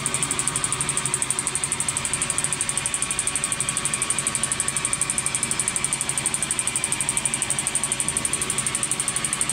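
CNC lathe turning an aluminium part: steady machine running with a high hiss that pulses rapidly and evenly.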